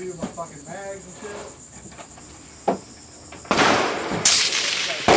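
Rifle shots fired at steel targets and clay pigeons: a faint crack, then three loud reports in the second half, with noise lingering between them. Crickets chirr steadily underneath.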